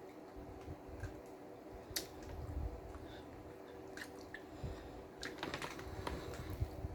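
A person chewing a BLT sandwich close to the microphone, with scattered crisp crunching clicks and a quick run of them about five and a half seconds in.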